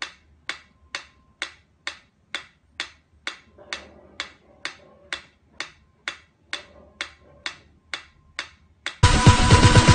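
Steady, evenly spaced ticking, a little over two ticks a second, like a clock or metronome. Loud electronic music cuts in abruptly near the end.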